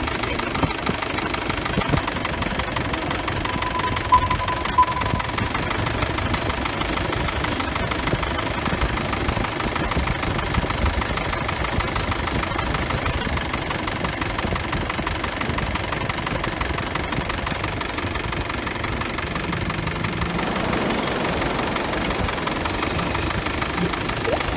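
Isuzu D-Max pickup engine idling steadily, heard at the engine bay, with the air-conditioning compressor engaged and running.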